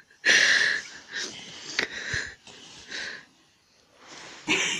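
A person laughing in breathy, wheezing bursts, the loudest about half a second long just after the start, with smaller ones following at irregular intervals.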